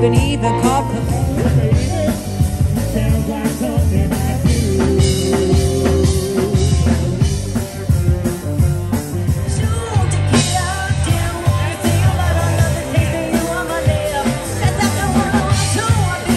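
Country band playing live: a woman sings lead into a microphone over a drum kit, guitar and keyboard, with a steady drum beat and a heavy low end.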